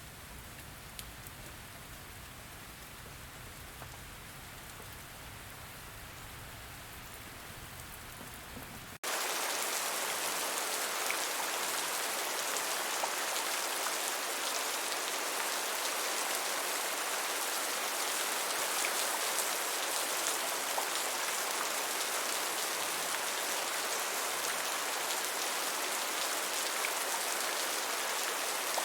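Steady rain falling, at first soft with a low rumble underneath; about nine seconds in it cuts abruptly to a louder, brighter rain hiss that runs on evenly.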